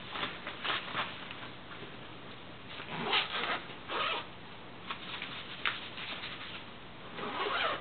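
Zipper on a soft nylon rifle case being pulled in several short rasping runs, with a sharp click about two-thirds of the way through.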